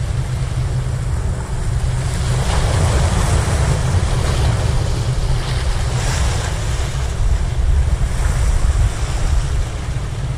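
Sea waves washing in over breakwater boulders, swelling every few seconds, under a heavy rumble of wind buffeting the microphone.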